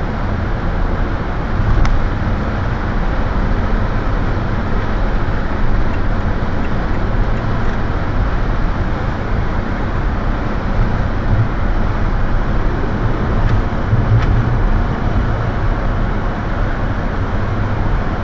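Steady road and engine noise heard inside the cabin of a car driving at speed, with a light knock about two seconds in.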